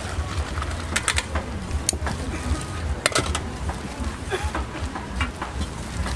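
Stainless steel pot and ladle clinking and a plastic bag crinkling as broth is poured into the bag and the pot is set down. There are several sharp clicks, the clearest about a second and three seconds in, over a steady low rumble.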